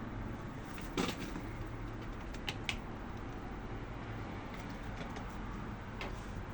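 Pigeons on a balcony making a few sharp taps and clicks: one about a second in, two in quick succession a little later, and a fainter one near the end, over a steady low rumble of background noise.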